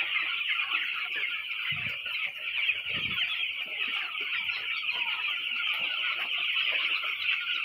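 A shed full of broiler chicks, about twelve days old, peeping all at once in a dense, continuous chorus of many overlapping high chirps.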